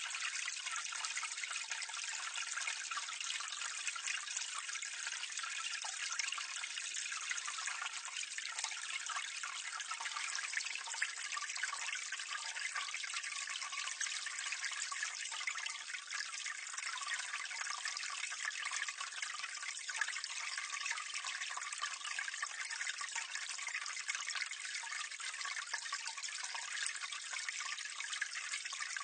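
Water pouring steadily from a drainpipe into a gully close by, a constant splashing trickle with fine droplet detail and little low end.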